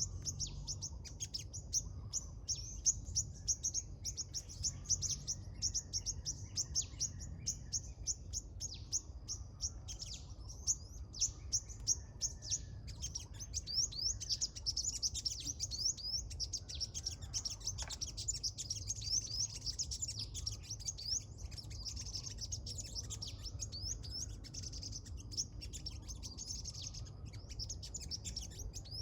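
Small birds chirping in a rapid, continuous stream of short, high-pitched notes, over a low steady rumble.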